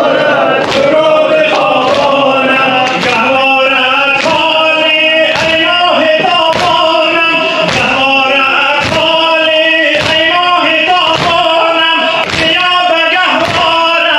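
Male reciter chanting a Shia nowheh lament through a microphone and loudspeaker, with the congregation's chest-beating (sineh-zani) slaps landing together in a steady beat about once a second.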